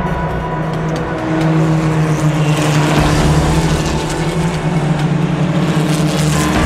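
KTM X-Bow race cars' turbocharged Audi 2.0 TFSI four-cylinder engines running hard at high revs as a pack drives by on track, getting louder about a second and a half in.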